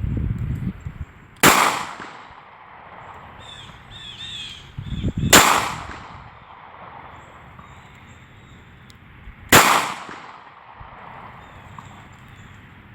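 Three pistol shots from a Ruger LCP .380 compact pistol firing .380 ACP rounds, each a sharp crack with a short ringing tail, about four seconds apart.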